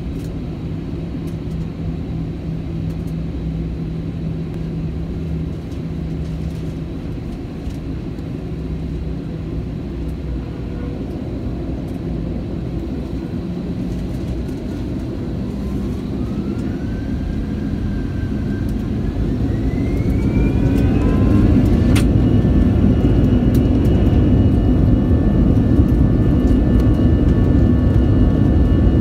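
Airbus A320 jet engines heard from inside the cabin: a steady low hum while taxiing, then from about halfway through a whine that rises in pitch and grows louder as the engines spool up toward takeoff thrust. A sharp click about three-quarters of the way in, then the engines settle into a steady high whine over the louder rumble.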